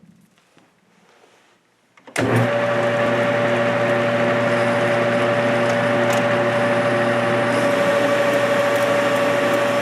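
Metal lathe starting up about two seconds in, then running steadily with a constant motor hum and gear whine.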